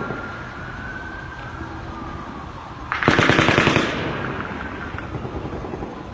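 A loud burst of rapid automatic gunfire, less than a second long, about three seconds in, with an echo trailing off after it.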